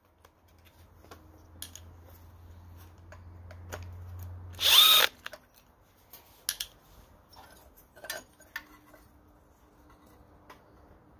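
Power drill/driver backing out the ignition coil's mounting bolts: a low steady whirr for about four seconds, then a brief loud burst of high whine near five seconds as the bolt frees. After that, a few light clicks of the coil and bolts being handled.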